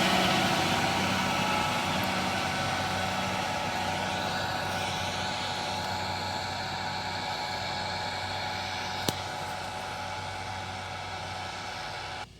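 John Deere 6140B tractor's diesel engine running steadily, gradually getting quieter, with one sharp click about nine seconds in; the sound drops away suddenly near the end.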